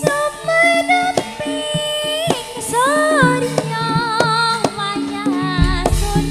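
Javanese gamelan music: a female singer's ornamented, wavering vocal line over kendang drum strokes and the steady tones of gongs and metallophones, with a deep low stroke near the end.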